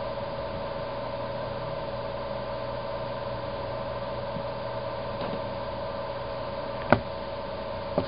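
Steady mechanical hum with a faint whine, broken about seven seconds in by one very brief sharp sound, and a smaller one just at the end.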